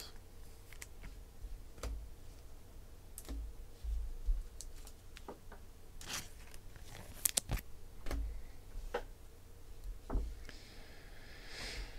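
Trading cards being handled on a tabletop: scattered light clicks and taps, with a few dull knocks. Near the end comes a short rustle as a stack of cards is picked up and thumbed through.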